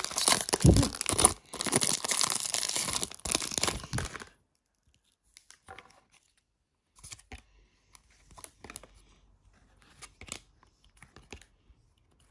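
Foil wrapper of a trading-card pack being torn open and crinkled, loud for about the first four seconds. After that come only faint rustles and taps as the cards are handled.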